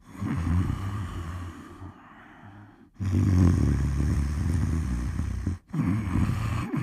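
Animated bear snoring: deep, rattling snores, three of them, the second one the longest, with short breaths of quiet between.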